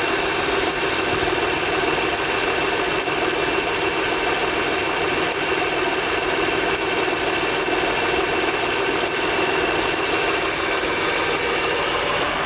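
Honda Pilot's V6 engine idling cold with a steady, even knock. The knock is heard only on a cold engine and is gone once it warms up.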